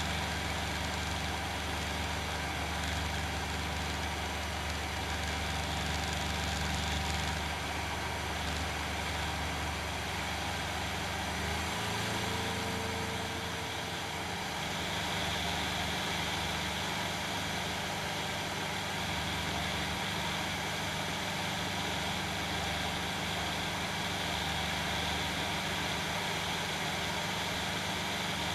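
Challenger II ultralight aircraft's engine and propeller droning steadily in flight, heard from on board with a constant rush of wind. The engine note shifts slightly about twelve seconds in.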